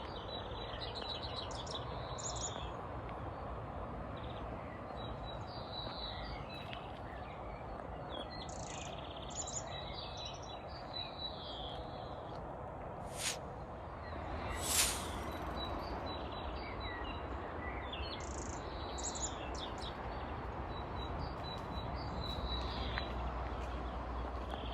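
Several forest birds singing and calling, many short chirps and trills, over a steady background noise with a low rumble. Two sharper, louder sounds come a little after the middle.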